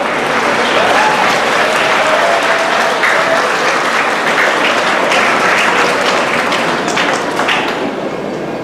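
Audience applauding, swelling about a second in and easing off near the end.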